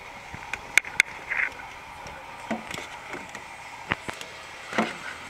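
A few sharp clicks and soft knocks from hands and a hand-held camera brushing against hoses and wiring in a car's engine bay, with the engine off.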